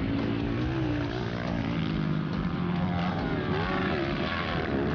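230cc four-stroke single-cylinder dirt bikes revving, their engine notes rising and falling as they are worked through the corners, with more than one bike heard at once.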